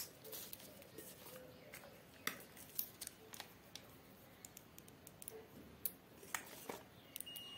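Scattered small clicks and taps of multimeter probe leads being handled, then near the end a Fluke 107 multimeter's continuity buzzer starts a steady high beep, the sign that the meter is in continuity mode and sees a closed circuit between its probes.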